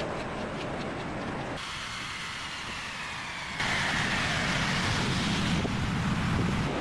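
Machinery noise in a car plant that changes abruptly every couple of seconds. Through the middle, a whine falls in pitch as a BMW saloon's wheels spin down on a roller test stand.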